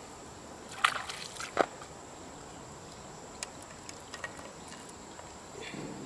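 Wet mud sloshing inside a ceramic pot as it is tipped and handled, with two sharp knocks about a second in and a few lighter ticks later.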